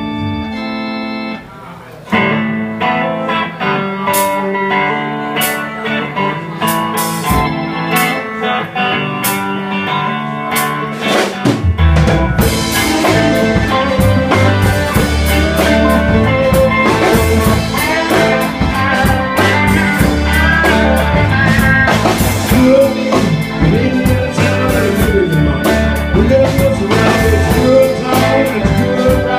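Live band music with electric guitar and keyboard, the drums and bass coming in fully about twelve seconds in.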